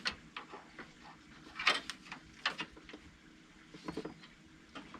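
Scattered light clicks and rustles as a wiring harness is handled and fed through a car's engine bay, with a faint steady hum underneath.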